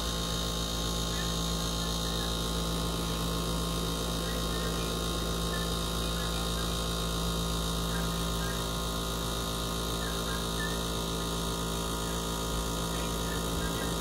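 SPT countertop dishwasher running a cycle, its pump motor humming steadily.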